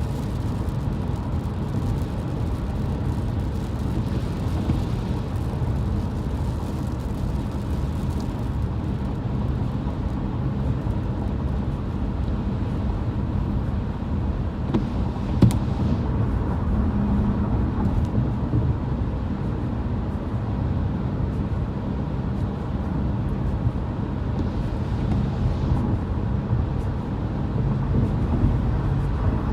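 Steady low rumble of a car driving, heard from inside the cabin, with strong gusty wind hitting the side of the car. A single brief click about halfway through.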